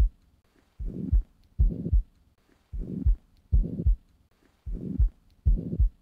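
Heart sounds recorded through a stethoscope, with a murmur filling the gap between the first and second heart sounds of each beat; six beats, about one a second.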